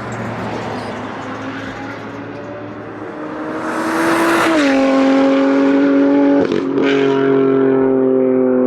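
BMW F80 M3's S55 twin-turbo inline-six running through a Valvetronic equal-length exhaust. The engine note builds loudly about four seconds in, drops in pitch, has a brief break about six and a half seconds in, then holds a steady note.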